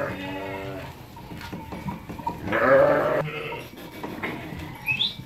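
Sheep bleating in a crowded pen of ewes and lambs: several calls one after another, the loudest about halfway through.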